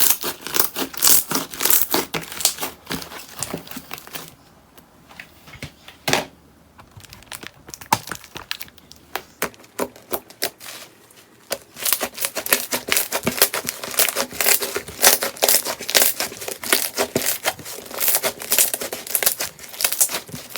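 Slime being squeezed and pressed by hand: a rapid stream of crackling, clicking pops. The pops grow sparse and quieter about four seconds in, then build back up to a dense crackle after about twelve seconds.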